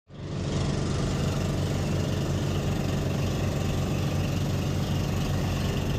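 Boat engine running steadily: a low, even drone with a steady hiss over it.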